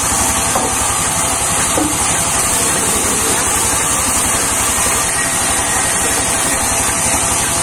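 Large sawmill band saw running steadily while a log is fed into its blade: a steady high hiss over a low, fast, even drone.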